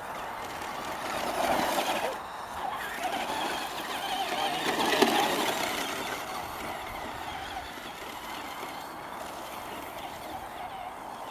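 Stock Traxxas Slash electric RC truck's brushed motor and gear drivetrain whining as it drives on the dirt track, running on a nearly flat battery. The whine swells twice, about a second in and again around the middle, with a sharp knock near the second peak.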